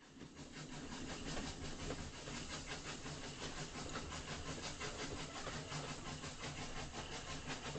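Train running: a steady hiss and rumble with a rapid, even clatter.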